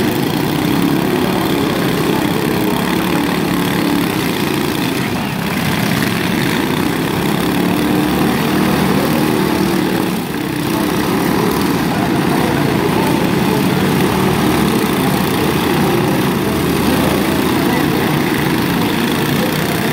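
Several riding lawn mower engines running at once, a steady mixed drone, as the mowers are driven about in a lawn mower demolition derby.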